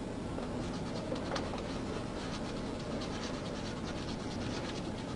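Irregular scratchy rustling and clicking as a man shifts about in the caged back seat of a police car, over a steady hiss.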